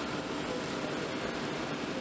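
Steady, even hiss of arc welding on an aluminium boat hull, with workshop machinery noise underneath.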